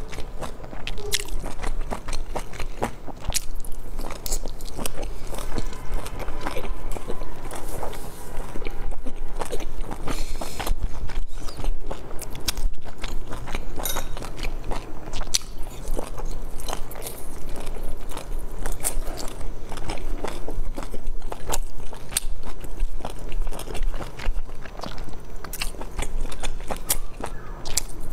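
Close-miked chewing and biting of pan-fried dumplings: a steady, dense run of wet mouth clicks and smacks.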